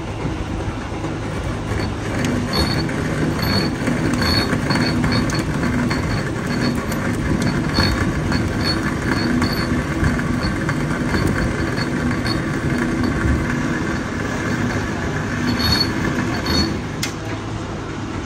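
Metal lathe running while cutting threads on a steel tractor hitch hook, a steady machine noise with short high-pitched squeaks coming and going.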